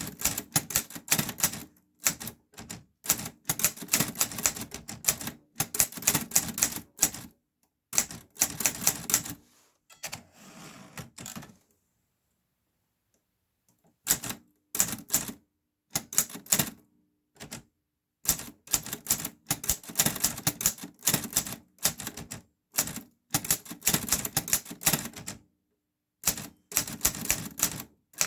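Clover New Star 10S two-set Hangul typewriter being typed on: runs of quick, sharp key strikes broken by short pauses. There is a softer, quieter rasping stretch about ten seconds in, followed by a brief silence.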